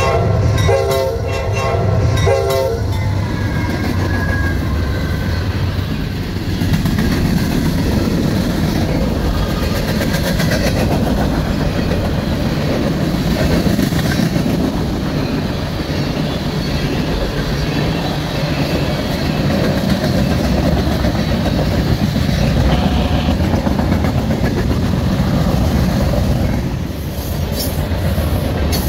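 Norfolk Southern freight train's locomotive horn blowing, cutting off about three seconds in. Then the long train of tank cars and covered hoppers rolls past close by, a steady loud rumble of steel wheels on rail with clickety-clack.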